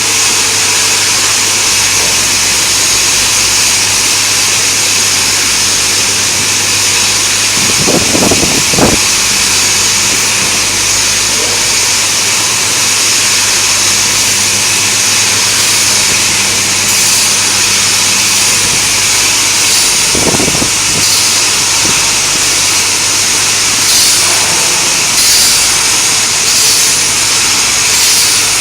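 Diamond saw blade segment grinding machine running: a steady motor hum under the high hiss of grinding. In the second half, short bursts of grinding repeat about every second or so, with a few low knocks earlier on.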